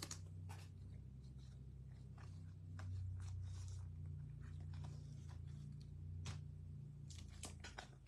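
Trading cards being slid into plastic card sleeves: faint, scattered rustles and crinkles of plastic, over a steady low hum.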